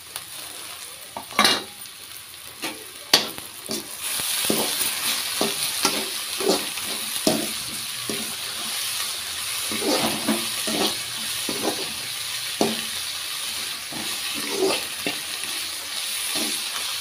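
Onion slices and chopped greens sizzling in hot oil in an aluminium kadhai, stirred with a metal slotted spatula that scrapes and knocks against the pan about once or twice a second. The sizzle grows louder about four seconds in.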